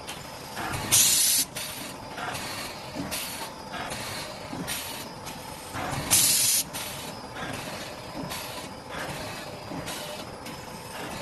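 Saw-blade cake slitting machine running with a steady mechanical clatter, with two sharp half-second hisses of compressed air about five seconds apart, about one second in and about six seconds in. The blasts are the machine's air blowing that clears crumbs and chips from the blade.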